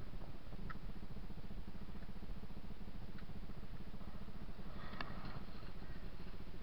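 Dirt bike engine idling steadily, with a few faint clicks over it.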